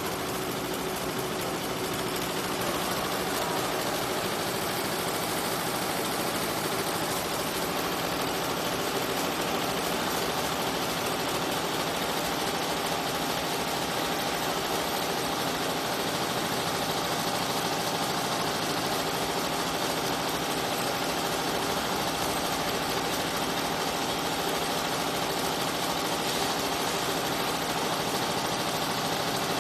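Richpeace multi-head computerised embroidery machine with sequin devices stitching: a steady, even mechanical running noise from the heads and sequin feeders.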